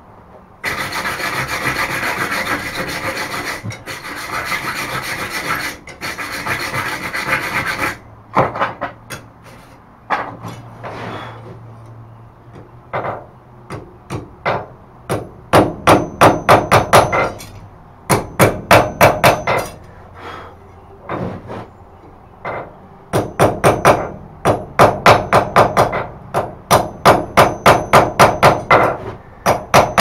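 Hand hammer striking a hot iron thumb-latch bar on the anvil in quick runs of ringing blows, about three a second, chamfering the bar's edge. The hammering is preceded by about seven seconds of steady rough scraping.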